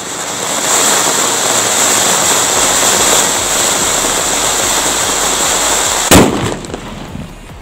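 Anar (ground fountain firework) spewing sparks with a steady, loud hiss. About six seconds in, a single sharp bang cuts through, and the hiss then dies away.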